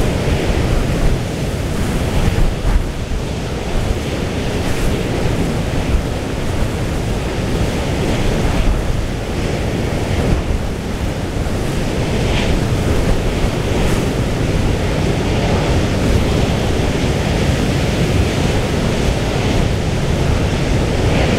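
Storm wind buffeting the microphone in gusts over the steady rush of rough sea.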